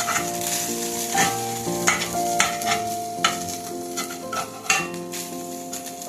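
Rice noodles sizzling in a frying pan on low heat while a utensil stirs and scrapes them, with irregular clicks against the pan. Soft background music with held notes plays under it.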